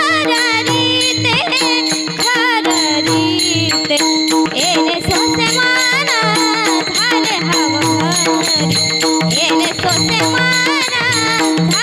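Varkari kirtan music: a woman singing a wavering, ornamented melody over a steady harmonium drone, with a pakhawaj drum and hand cymbals keeping the beat.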